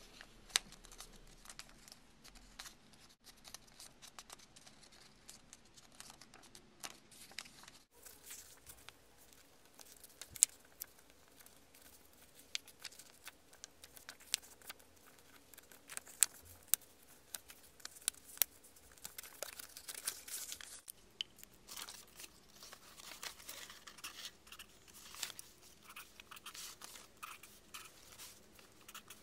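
A paper strip being folded and creased by hand into equilateral triangles: crinkling and rustling paper with many scattered sharp clicks and taps. The background hiss changes abruptly twice, about 8 and 21 seconds in.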